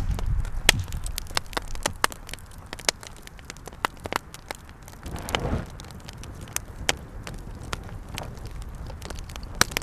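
Wood fire crackling, with many irregular sharp snaps and pops over a low steady hiss.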